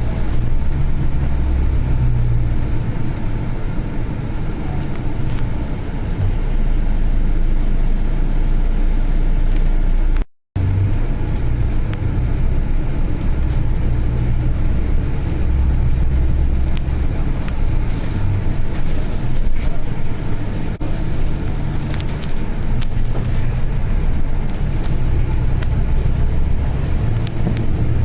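Interior of a Volvo B8 bus under way: steady engine drone and road noise that rises and falls a little as the bus moves. The sound cuts out for a moment about ten seconds in.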